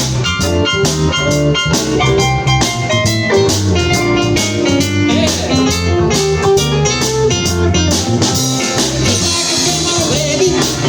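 Blues band playing an instrumental break: a guitar picking out a lead line over bass and drum kit, with the cymbals growing louder near the end.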